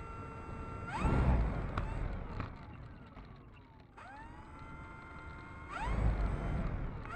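Electric brushless motor and propeller of an E-flite Turbo Timber Evo RC plane taxiing: a steady whine at low throttle, then two short throttle bursts, about a second in and near the end, each rising in pitch with a loud low rumble and then winding back down.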